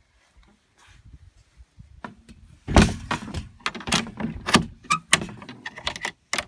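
A quick run of knocks, clunks and rattles starting about three seconds in, the first thump the loudest: a door being worked and the phone being handled.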